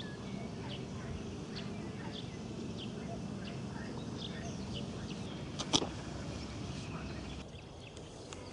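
Birds chirping in short high calls, repeated about every half second to a second over a steady low background noise, with one sharp click a little past the middle.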